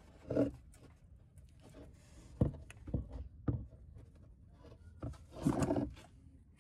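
Handling noises from a new ABS wheel-speed sensor cable being fed through the wheel arch and clipped into its holders: a few short knocks and clicks, and a longer rough sound about five and a half seconds in.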